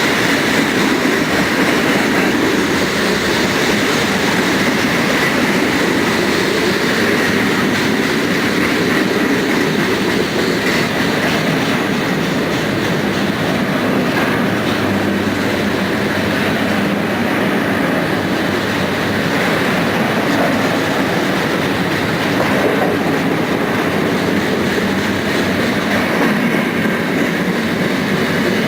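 Cars of a manifest freight train rolling past steadily, wheels running on the rails.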